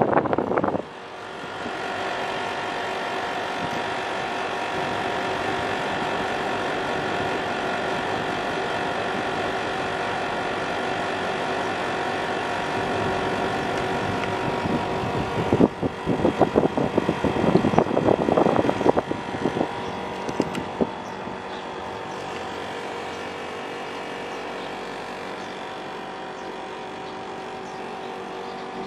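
National CU-915KH mini-split air-conditioner outdoor unit running noisily: a steady drone of several tones. From about the middle, for some five seconds, a louder uneven noise rises over it. The owner puts the noise down to worn-out vibration absorbers.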